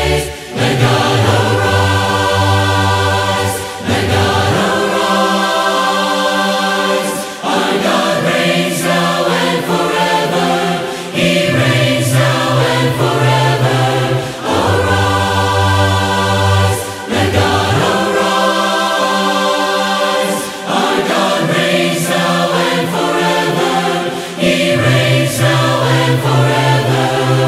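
Several voices singing a hymn together in parts, unaccompanied, in phrases of a few seconds with short breaths between them.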